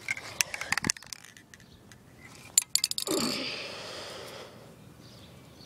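Aerosol spray paint can handled: a quick run of sharp metallic clicks and clinks, then about three seconds in a short hiss of spray that fades out over about a second and a half.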